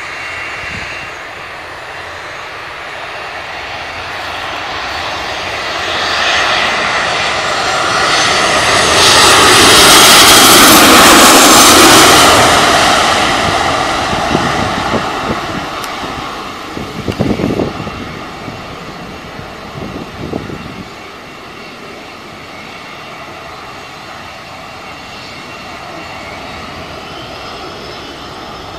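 Twin-engine jet airliner on final approach flying low overhead. The engine roar builds, peaks about ten seconds in with a whine that falls in pitch as it passes, then fades away as it lands. A few short low thumps come a few seconds after the peak.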